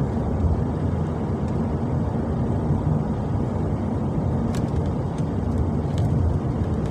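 Steady road and engine noise heard inside a moving truck's cab, with a few faint ticks in the second half.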